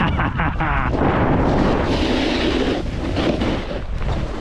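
Snowboard sliding and carving on snow, its edge scraping with a rising hiss of sprayed snow about two seconds in, over wind rushing on the microphone.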